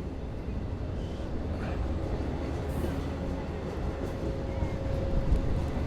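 Diesel passenger train pulling out of the station, hauled by EMD DM30AC locomotives: a steady low rumble of engines and rolling wheels with a faint steady whine, slowly getting louder.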